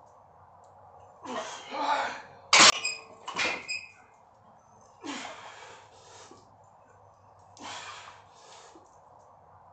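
A lifter's hard, heaving breaths between reps of a heavy barbell overhead press, in pairs every few seconds. The loaded barbell gives two sharp metallic clanks, about two and a half and three and a half seconds in, as it comes down to the shoulders; the first is the loudest sound.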